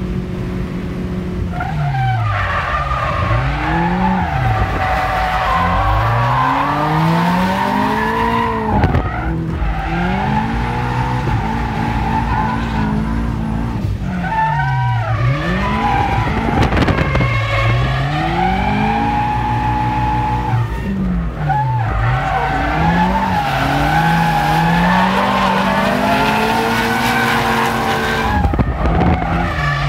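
Drift car engine revving hard, its pitch climbing and dropping again and again as it is worked on and off the throttle through the slides. The tyres squeal almost without break over it, heard from inside the car.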